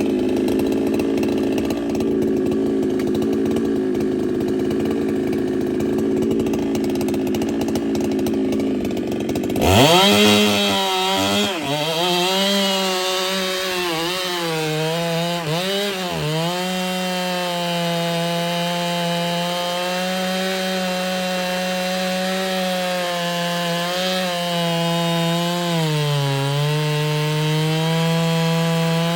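Ported Husqvarna 395 two-stroke chainsaw running at full throttle while cutting wood. About ten seconds in, the sound changes abruptly to a clearer, steady engine pitch that sags briefly several times as the chain loads in the wood.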